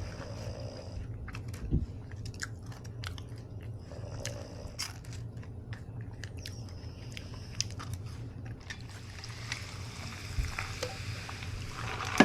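A person chewing French fries, with repeated crunching and wet mouth clicks, and one short low thump about two seconds in.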